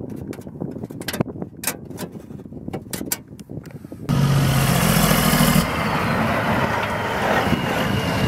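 Light clicks and taps as a hand handles the loose, embossed metal exhaust heat shield hanging from under a car. About four seconds in, loud road noise from passing traffic cuts in suddenly, with a low engine hum for a second or two, and runs on as a truck goes by.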